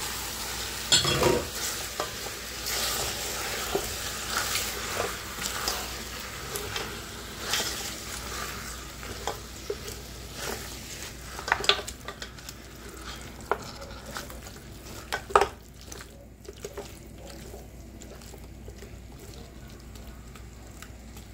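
Beef rib pieces with chopped tomato and bell pepper sizzling as they are sautéed in a pressure cooker pot, stirred with a silicone spatula that scrapes and knocks against the pot side now and then. The stirring is busiest in the first half; after that the sizzle carries on more quietly with only a few knocks.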